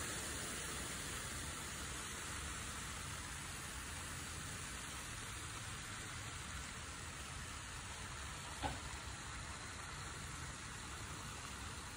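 Steady hiss of rain falling, with a single click about nine seconds in.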